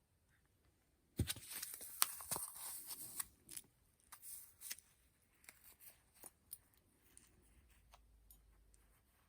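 Crinkling and rustling of packaging or a bag being handled, with sharp clicks, for about three and a half seconds starting a second in, then a few scattered light ticks.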